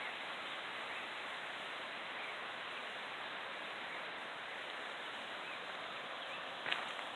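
Small mountain waterfall and creek rushing in a steady, even hiss, with faint bird chirps. A few sharp clicks come near the end.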